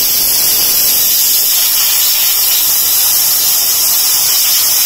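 Prestige pressure cooker's whistle: steam jetting from the weight valve in a loud, steady hiss that cuts off sharply near the end. It is the second whistle, the sign that the peanuts are done.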